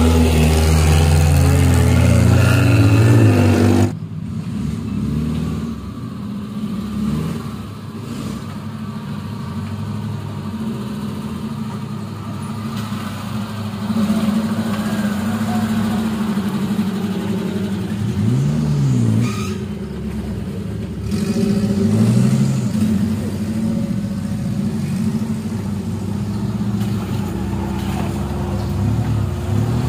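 Suzuki Jimny off-road 4x4 engines running and revving on a trail. One loud engine breaks off abruptly about four seconds in, and a quieter one takes over with several short revs that rise and fall.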